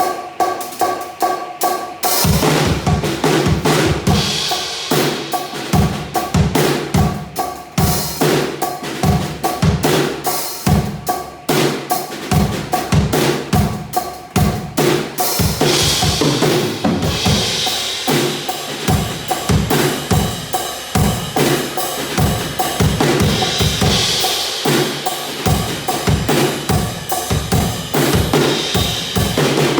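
RMV Crossroad acoustic drum kit played solo: a steady groove of bass drum and snare, with cymbal crashes every several seconds. It opens with about two seconds of lighter, ringing strokes before the full kit comes in.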